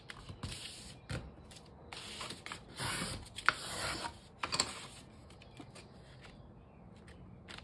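Paper plate being folded and creased by hand: stiff paper rustling and rubbing, loudest in the middle with one sharp crackle, then quieter handling as the fold is pressed flat.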